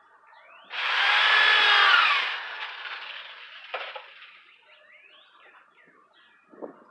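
Electric drill with a number two bit driving a 3-inch screw into wood in one run of about a second and a half, its motor pitch dropping near the end as the screw seats. A short click follows.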